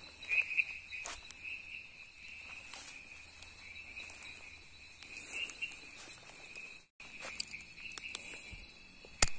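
Night insects, crickets, chirring steadily at one high pitch, with scattered crunching footsteps through forest undergrowth and a sharp click near the end.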